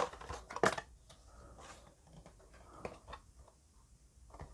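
Paper and cardboard being handled: short rustles and light knocks, two sharper ones in the first second, then fainter scattered rustles.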